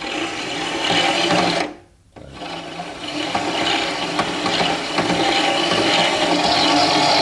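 Drive motor of a scratch-built RC bulldozer running its roller chain over the sprockets and gears during a test run of the newly fitted chain drive. It runs for under two seconds, stops briefly, then runs again.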